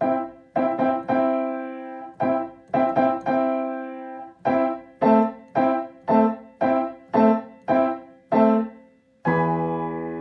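Piano playing a fanfare-like entrance cue in block chords. It opens with short quick groups of repeated chords, then strikes chords about twice a second, and lands on a full, held chord with deep bass near the end.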